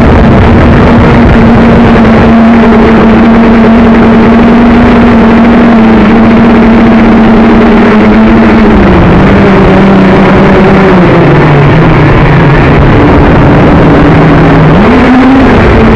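JJRC X1 quadcopter's brushless motors whining, heard from the camera on board, under heavy wind noise. The motor pitch holds steady, drops in two steps about halfway through, then climbs quickly near the end as the throttle changes.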